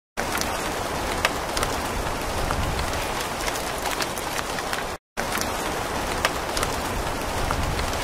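Steady rain falling on a surface: an even hiss with scattered louder drop hits. It cuts out for a split second about five seconds in, then carries on.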